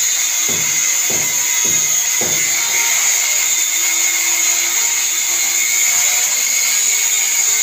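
Handheld angle grinder cutting through steel rebar, its disc giving a steady high-pitched whine without a break.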